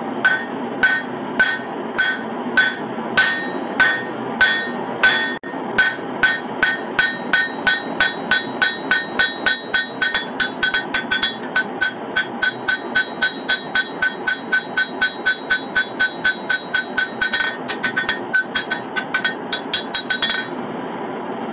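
Hand hammer striking a red-hot katana blade on a steel anvil, forging the blade's bevel. Each blow rings, at about two a second at first, then in a quicker steady run of about three a second from about six seconds in, stopping a second before the end. A steady shop noise runs underneath.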